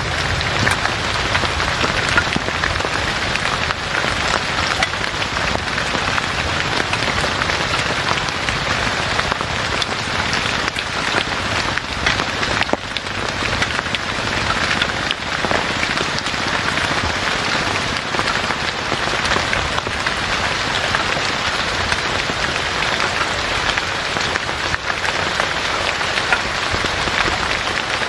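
Heavy rain falling steadily, a dense even hiss with individual drops ticking through it.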